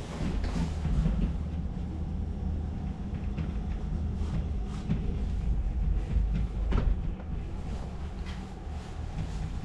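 Steady low mechanical rumble with a few scattered knocks and clicks, the sharpest about seven seconds in.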